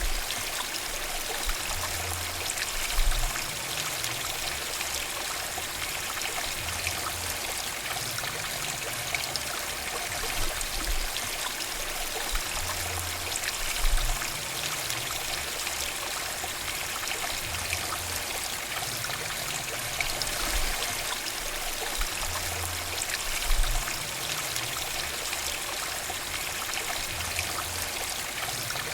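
Small mountain stream flowing steadily over rocks, a continuous trickling and babbling rush of water, with a few brief low rumbles that stand out from the flow.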